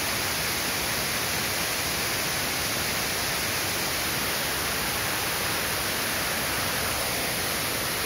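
Waterfall spilling in many strands down a tall rock face into a shallow, rocky plunge pool: a steady, even rush of falling water.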